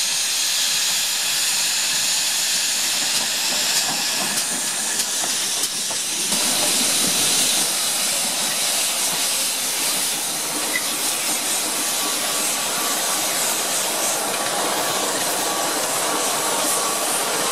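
Pannier tank steam locomotive hissing as it approaches. About six seconds in, the sound changes to a train rolling slowly past close by, with a diesel locomotive among its vehicles.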